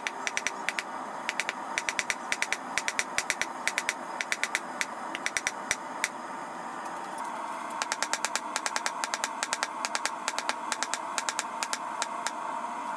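Hand hammer striking a red-hot steel bar on an anvil, sharp ringing blows in quick runs of about three a second, pausing for a couple of seconds midway, over a steady background roar.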